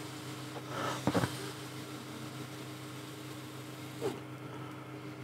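Steady low hum of a CO2 laser cutter's running equipment, with a short gust of blown breath about a second in and a smaller brief noise about four seconds in.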